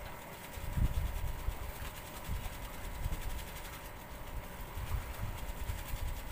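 Wind buffeting the microphone in irregular low rumbles, loudest about a second in, over a faint steady hum.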